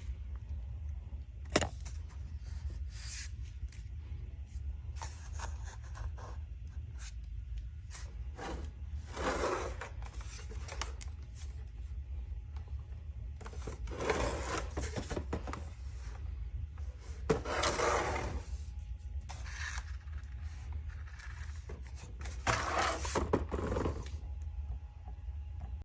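Irregular scraping and rubbing of things being handled, with two sharp clicks, one near the start and one about two-thirds of the way in, over a steady low hum.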